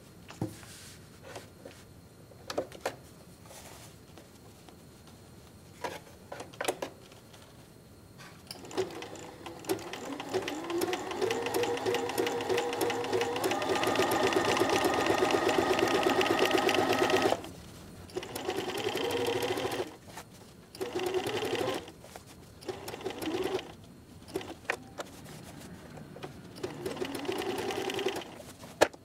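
Electric sewing machine stitching a close zigzag, going in starts and stops. After a few clicks at the start, it runs steadily for several seconds, speeds up and stops sharply, then sews in several short bursts with pauses between, where the fabric is turned with the needle left down at the curves.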